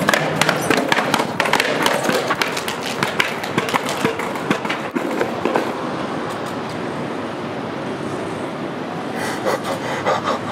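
Skateboard on concrete: the wheels roll with a quick run of sharp clacks and knocks over the first six seconds or so, then a steadier rolling rumble with a few more knocks near the end.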